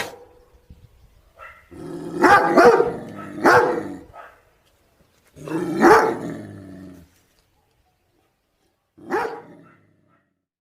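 An animal calling in separate bursts, about five calls with silent gaps: a cluster of calls about two to four seconds in, a longer call near six seconds and a short one near the end.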